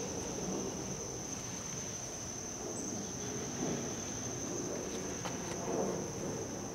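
Crickets chirring steadily in one high, unbroken tone, over a low background rumble, with a couple of faint clicks near the end.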